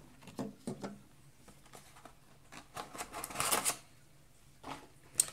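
Plastic model-kit packaging and parts handled on a table: a few light clicks and taps, a rustle of about a second around three seconds in, and one sharp click near the end.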